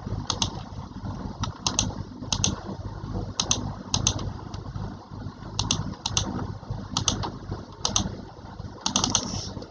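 Sharp clicks, mostly in quick pairs or small groups, coming at irregular intervals about once a second, over a steady low rumble.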